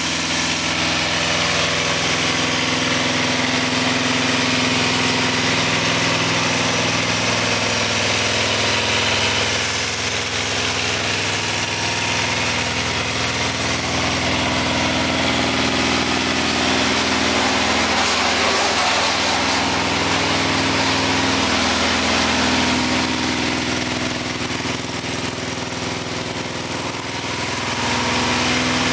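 Kawasaki ER-5's 498 cc parallel-twin engine idling steadily.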